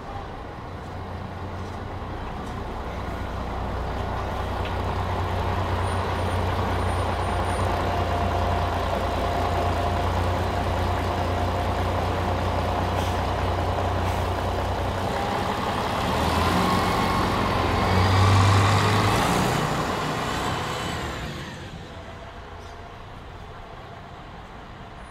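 City bus engine running loud and close, building up as the bus approaches and passes in front. Near its loudest there is a hiss of air brakes and a short falling squeal, then the sound drops away quickly, leaving quieter street traffic.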